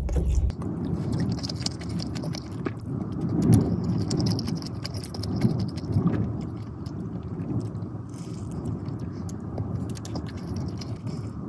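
Close-miked chewing and mouth sounds of a person eating tuna fish curry with rice, full of small wet clicks and smacks, with a few louder bites.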